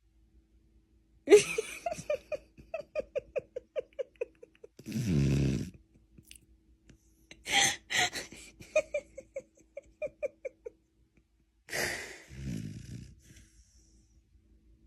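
A sleeping beagle snoring and wheezing: a few separate noisy breaths, some of them low and rumbling. Two runs of short, quick, evenly spaced squeaky pulses follow two of the breaths.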